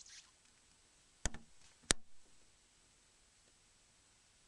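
Two sharp plastic clicks about two-thirds of a second apart: the snap catches of a Nokia E65 phone housing being unlocked with a pry tool.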